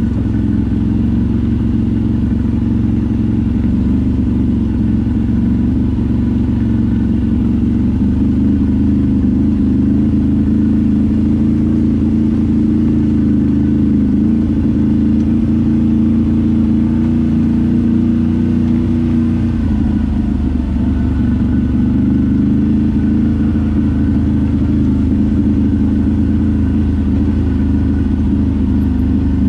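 ATV engine running steadily under way, its note dropping a little about two-thirds of the way through.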